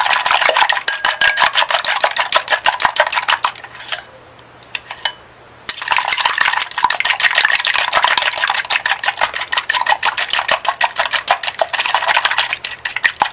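Long wooden cooking chopsticks beating raw eggs in a glass bowl, clicking rapidly against the side of the bowl. The beating breaks the thick egg white so that white and yolk blend. It pauses for about a second and a half some four seconds in, then goes on.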